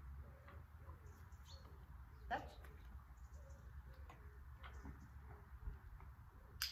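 A hen clucking softly, a run of faint low calls one after another, with a sharp click about two seconds in and a louder one near the end.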